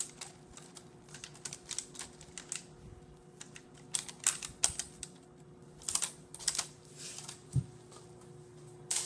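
Irregular soft clicks and scrapes, bunched in small clusters, of a rubber spatula spreading whipped topping over ice cream bars in a parchment-lined loaf pan, over a faint steady hum.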